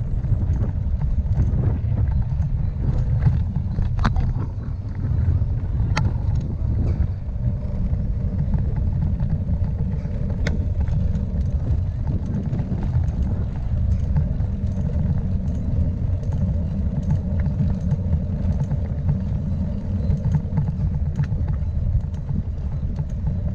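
Bicycle rolling over cobblestones: a steady low rumble from the tyres and the shaken bike, with scattered sharp clicks and rattles.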